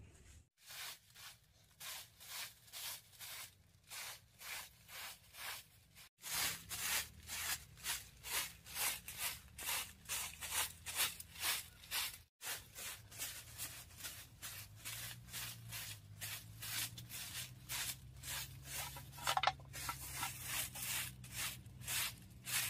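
Short broom of bundled dry stalks sweeping a packed-earth floor, one scratchy brushing stroke about every half second. The run breaks off for an instant twice.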